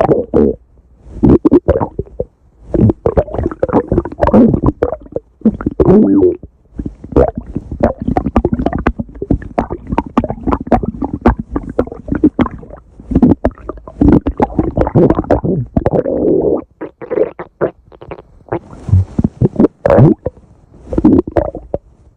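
Stomach growling: a long run of irregular gurgles and rumbles, broken by brief pauses and quieter for a few seconds near the end.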